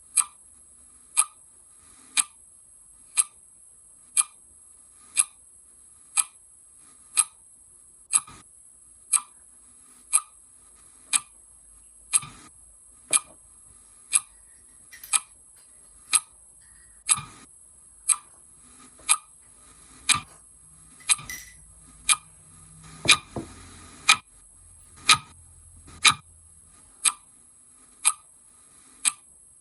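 Clock ticking steadily, one sharp tick a second. A few faint knocks and a low hum come in around two-thirds of the way through.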